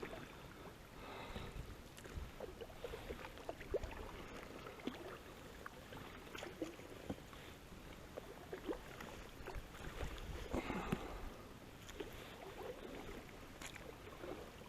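Water splashing and dripping with scattered small knocks and rustles as a gill net is handled and hauled out of a river, with a louder splashy stretch about ten seconds in.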